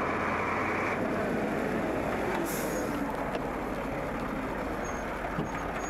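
Loaded heavy lorry driving past, its diesel engine running under a steady road rumble.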